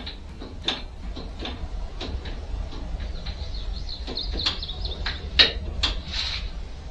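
Scattered clicks and knocks of hands and tools working a new motorcycle clutch cable into place, with a thin squeaky rasp through the middle.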